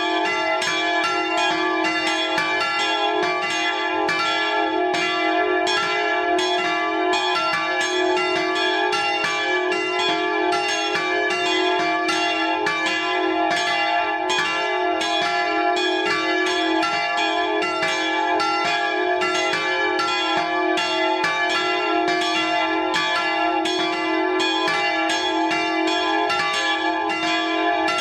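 Church bells tuned D, F and G-sharp, bronze bells cast by Fischer of Trnava, swinging and ringing together in a full peal, heard close up in the belfry. A dense, steady stream of overlapping strikes, several a second, over a sustained ring.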